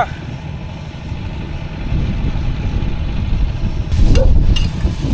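Strong wind buffeting the microphone over the steady running of a construction-site generator, louder for a moment about four seconds in.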